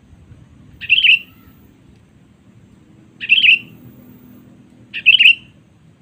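Sooty-headed bulbul (kutilang) calling: three short, loud calls about two seconds apart.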